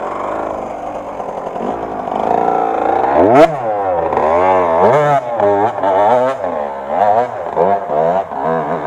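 Enduro motorcycle engine revving, its pitch climbing and falling again and again in quick swells from about three seconds in, with a sharp clack as the revving starts.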